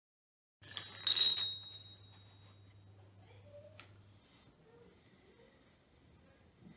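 Metal tools and welding-torch parts handled: one bright metallic clink that rings briefly about a second in, then a lighter click near four seconds. A low steady hum sits beneath for the first few seconds.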